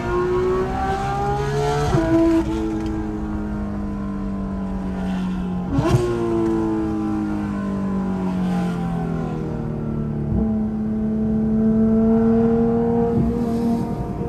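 Porsche 911 GT3 RS's naturally aspirated flat-six, heard from inside the cabin, revving up and shifting up twice, about two and six seconds in, with a short crack on the second shift. The revs then sink slowly, and the engine pulls again near the end.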